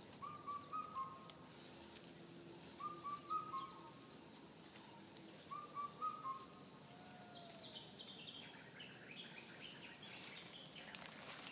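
Faint birdsong: a short phrase of whistled notes, repeated three times about three seconds apart, then a run of higher notes stepping down near the end.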